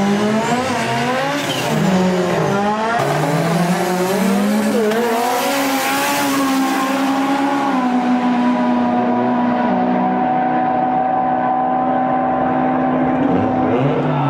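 Race car engines revving, their pitch rising and falling and crossing. For about the last six seconds one engine holds a steady pitch.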